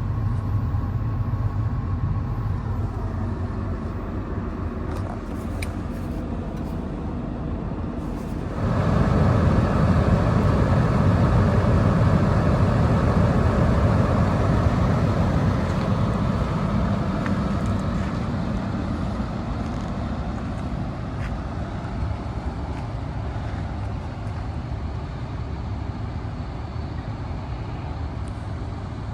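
The Isuzu diesel engine of a Link-Belt 355X4S excavator running steadily; about eight seconds in it suddenly gets louder, then eases back gradually over the following ten seconds.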